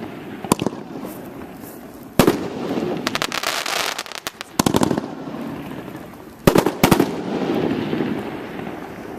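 'One Bad Mother' consumer firework cake firing a string of aerial shells. Sharp bursts come about half a second, two seconds, four and a half and six and a half seconds in, with a dense patter of rapid crackling pops around three to four seconds in and a rolling rumble between the reports.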